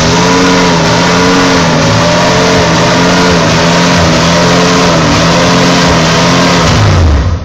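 Lifted Jeep Grand Cherokee's engine held at high revs under heavy load, its pitch wavering as the tyres churn through deep mud on a steep climb. The sound drops away sharply near the end.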